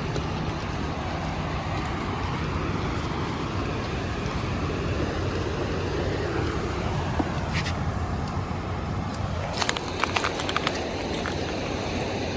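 Steady traffic noise from passing cars, with a quick run of sharp clicks about ten seconds in.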